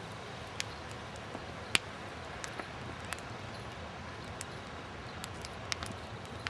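Steady outdoor background rush with scattered sharp clicks and pops, the loudest about two seconds in.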